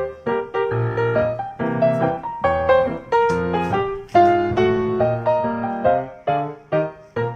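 Background music: a piano playing a melody of single notes over low bass notes.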